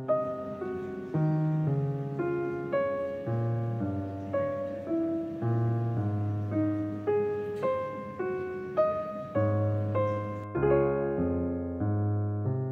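Background piano music: a gentle melody of single struck notes, about one or two a second, over a slower bass line.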